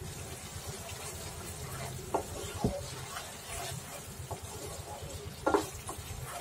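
Wooden spatula stirring and scraping a thick spiced masala paste around a non-stick frying pan, with a few knocks against the pan, the loudest about five and a half seconds in. The paste sizzles softly as it cooks down.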